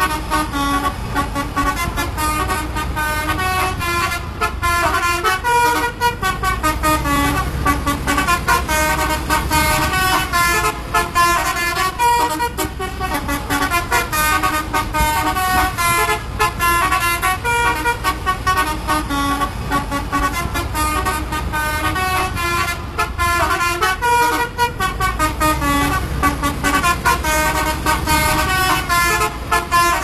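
Bus telolet horn playing cheerful multi-note melodies over and over, its rapid stepped tones sounding above the low running noise of the bus and motorcycle engines.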